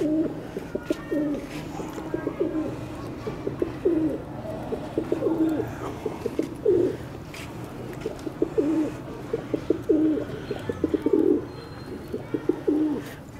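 Domestic pigeons cooing, one low coo after another.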